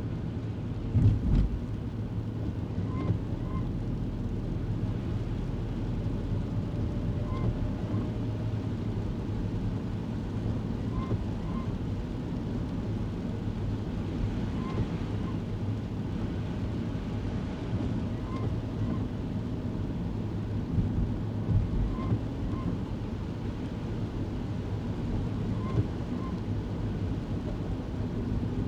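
Kei car driving on a wet road, heard from inside the cabin: a steady engine hum and tyre and road noise. A pair of short, faint chirps repeats about every four seconds, and there is a low thump about a second in.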